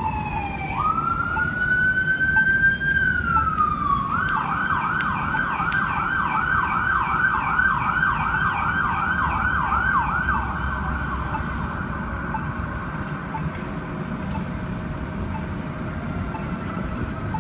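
Fire department emergency vehicle's siren on a call. It starts as a wail that falls, rises and holds, then falls again. It then switches to a fast yelp of about two and a half cycles a second, which stops about ten seconds in, over a steady low rumble of traffic.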